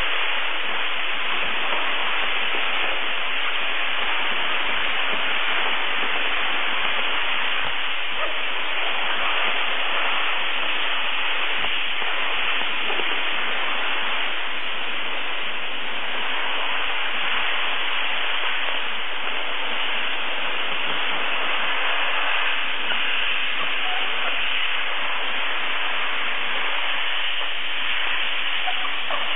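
Dry steam cleaner's jet hissing steadily from the lance nozzle as it is played over a painted surface, stripping flaking paint.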